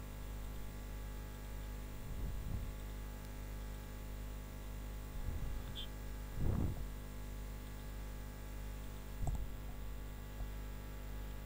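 Steady electrical mains hum, with four soft low thumps; the loudest comes about six and a half seconds in.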